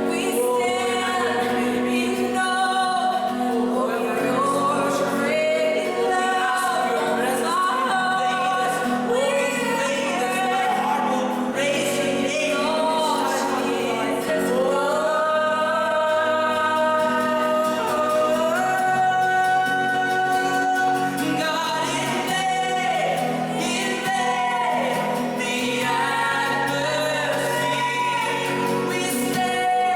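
Worship song: voices singing a slow gospel melody with instrumental accompaniment.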